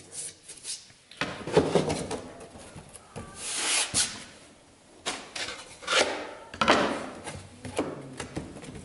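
Thin plywood pieces being handled and laid into a wooden door frame: irregular light knocks of wood on wood and a few longer rubbing swishes as hands slide across the plywood.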